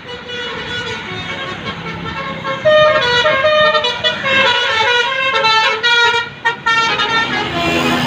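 Bus telolet: a Basuri multi-tone air horn on a passing tour bus playing a quick tune of stepping notes, starting about three seconds in over engine and traffic noise, with a couple of brief breaks near the end.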